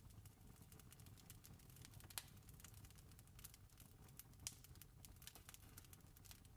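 Campfire crackling: irregular small snaps and pops, with two louder snaps about two seconds and four and a half seconds in, over a faint low steady rumble.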